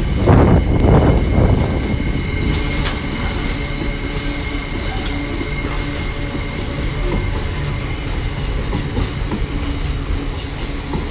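Wagons of a long, heavy freight train rolling past, their wheels clattering over the rail joints, heaviest in the first couple of seconds, over a steady rumble with a thin, high, steady whine.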